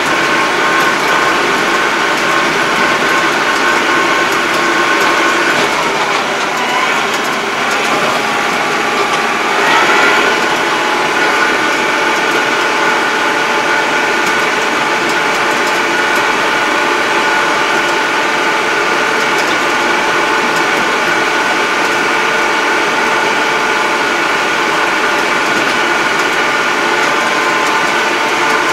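2020 Yanmar YT333 tractor's diesel engine and drivetrain running steadily while driving, heard from inside the cab as a steady drone with a whine. About six seconds in the pitch sinks as it slows, then climbs back about ten seconds in as it picks up speed again.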